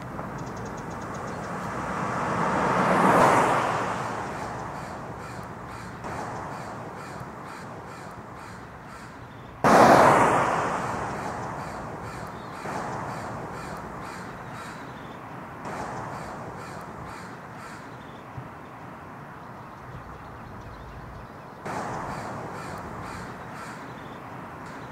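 Cinematic sound design: a rising whoosh swells for about three seconds and fades. Then a sudden heavy hit with a long decaying tail lands about ten seconds in, and lighter hits follow every few seconds over a quick, faint ticking pulse.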